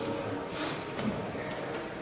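Quiet church room noise after the bells have stopped, with a brief rustle about half a second in.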